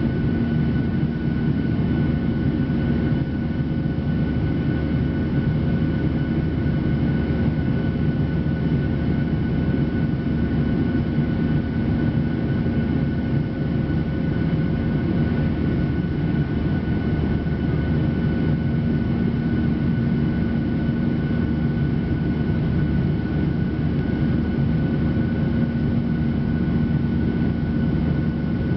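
Jet airliner's engines and airflow heard inside the passenger cabin in flight: a steady, unbroken rumble with a few constant hum tones over it.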